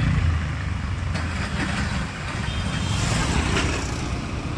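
A motor vehicle running and being driven, with a steady low rumble and road noise and a few light knocks.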